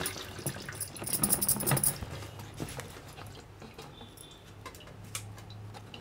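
Cut raw mango pieces, wet from standing salted overnight, being handled and squeezed by hand in a clay bowl: soft wet patter and small clicks and knocks, busiest in the first two seconds, then fainter.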